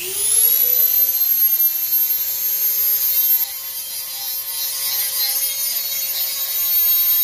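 Corded Dremel rotary tool spinning up fast to a steady high whine and grinding away the plastic edge of an LED mirror light lens that is too wide for its opening.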